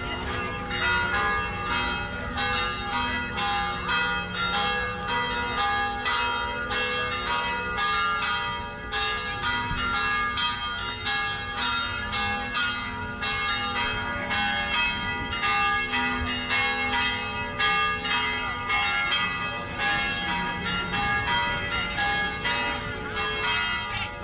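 Church bells ringing continuously: a steady peal of overlapping strokes, two or three a second, each one ringing on into the next.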